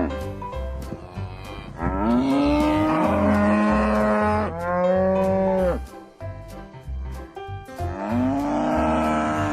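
Cattle mooing: three long, drawn-out moos, starting about two seconds in, around the middle, and near the end, over background music with a steady beat.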